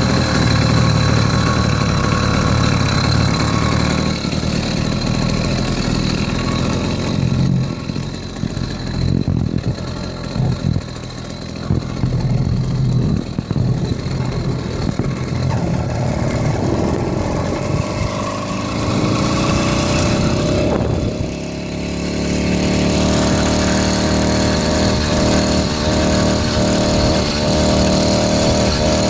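80cc two-stroke motorized-bicycle kit engine running during a ride, easing off in the middle and then speeding up, its pitch rising from about 18 to 22 seconds in. The owner says it doesn't sound right to him and isn't reaching its power band, and he suspects the carburetor.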